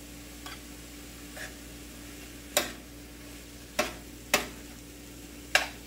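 Vegetables being stirred with a spoon in a stainless steel frying pan over a light sizzle, the spoon knocking sharply on the pan four times in the second half.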